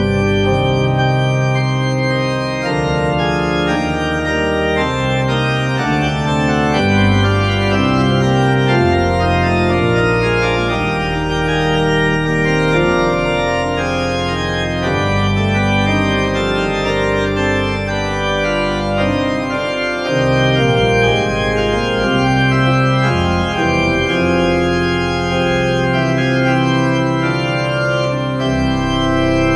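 Viscount Sonus 60 digital classical organ playing a polyphonic prelude in Vallotti temperament: sustained chords over a moving pedal bass, at a steady level without pauses.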